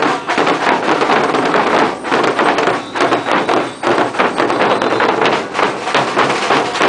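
Marching street drum band of snare and bass drums playing loud and close, many rapid hits blending into a dense clatter.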